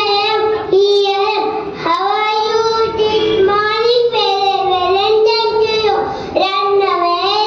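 A young girl singing solo into a microphone: long held notes in short phrases, with small slides in pitch between them.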